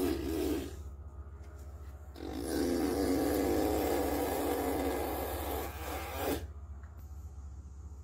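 A toddler imitating a string trimmer with his mouth, a buzzing, wavering vocal drone. One buzz ends just under a second in, and a longer one starts about two seconds in and lasts about four seconds.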